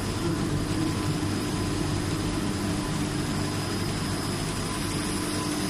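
Curtain coating machine running with a steady mechanical hum and a few constant whining tones, even in level throughout.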